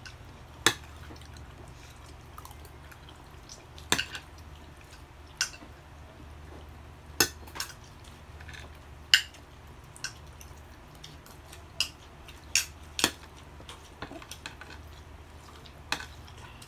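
Spoons and forks clinking and scraping on dinner plates as two people eat, in sharp, irregular clinks about a second apart, over a low steady hum.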